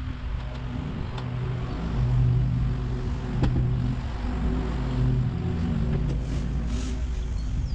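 A low, steady engine-like hum that swells and fades over a few seconds, with a few light clicks or knocks.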